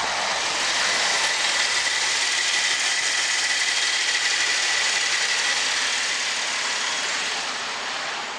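Holden VF Commodore SV6's 3.6-litre LFX V6 idling, heard close up in the open engine bay. A steady high whine rides over it and fades out near the end.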